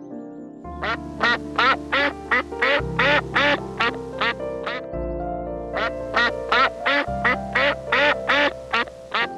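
A duck quacking in two quick runs, about three quacks a second, with a short break about halfway through.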